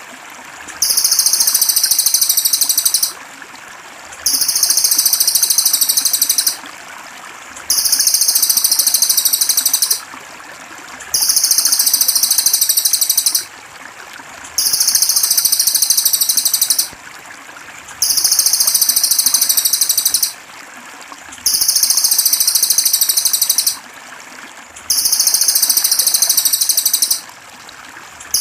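A songbird's high, very fast buzzing trill, repeated in identical phrases about two seconds long roughly every three and a half seconds, as in a looped birdsong recording used for training birds. Steady trickling water runs underneath.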